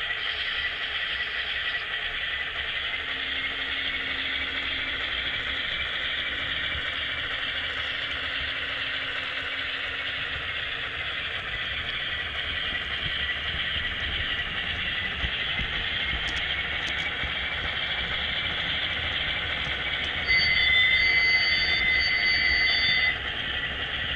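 HO-scale model train running along the track: a steady rushing noise with a wavering high squeal. About twenty seconds in, a louder sound with steady tones rises for about three seconds, fitting the locomotive's sound-decoder horn.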